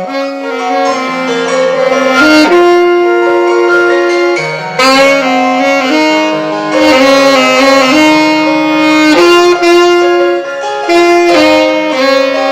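Alto saxophone playing a slow melody of long held notes, with lower accompanying notes sounding underneath.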